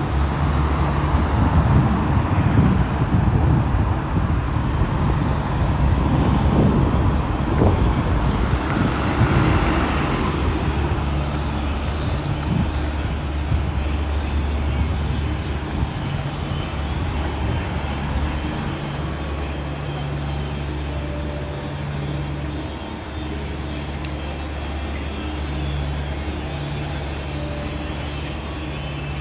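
City street traffic: a vehicle passes during the first ten seconds or so. After that a steady low engine hum remains, as from a vehicle idling close by.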